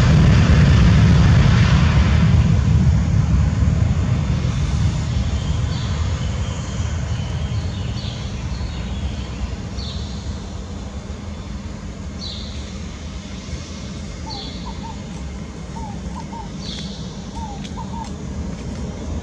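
The Airbus A320-214's CFM56-5B turbofan engines at takeoff thrust: a steady jet rumble that fades gradually as the airliner rolls away and climbs out. From about six seconds in, a bird calls with short high chirps every couple of seconds.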